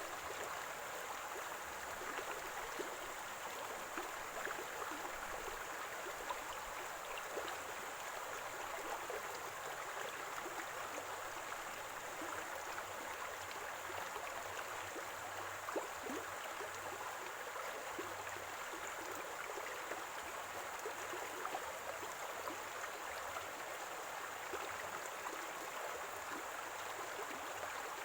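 Small stream of running water gurgling steadily, with many tiny splashes and droplets.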